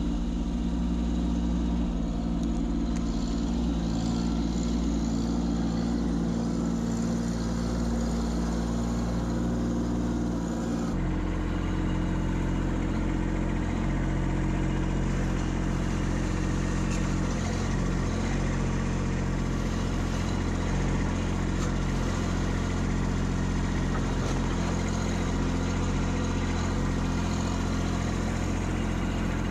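Kubota B2601 compact tractor's diesel engine running steadily. Its sound changes abruptly about eleven seconds in, then runs on steadily.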